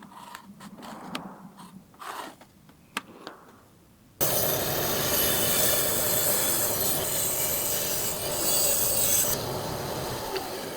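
Faint scratchy strokes and light taps of marking out on wood for about four seconds. Then, suddenly, loud, steady abrasive rasping of wood as the patch piece is shaped by hand.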